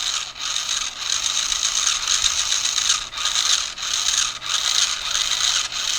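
Small brushed 130 motor and plastic gearbox of a toy RC monster truck whirring as it runs through its demo mode, with brief dips as the drive switches direction.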